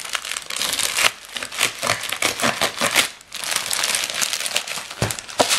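Thin plastic packaging crinkling and rustling as hands pull and tear it open, in dense crackly strokes that let up briefly about three seconds in.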